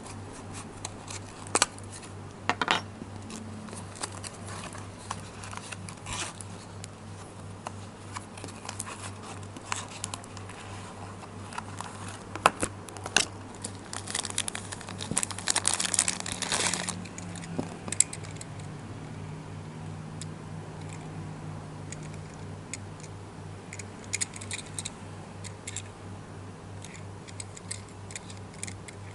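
A small cardboard toy-car box being handled and opened, with scattered sharp clicks and taps, then a thin clear plastic bag crinkling as a die-cast toy car is unwrapped from it, most dense about halfway through. A steady low hum runs underneath.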